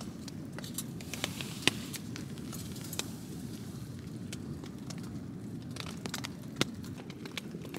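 Wood fire crackling inside a small titanium wood-burning stove, with a few sharp pops over a steady low rush.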